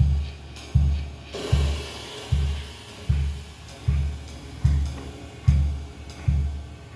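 Background music with a steady drum beat: a deep kick drum about every 0.8 seconds, with cymbals over it.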